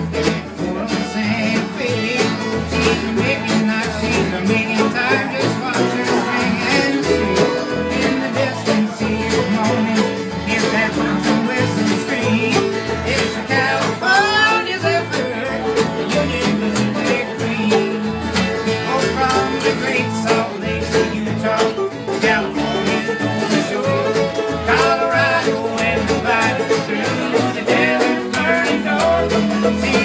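Acoustic string band playing a lively instrumental tune together, with fiddles, mandolin, acoustic guitars and banjo.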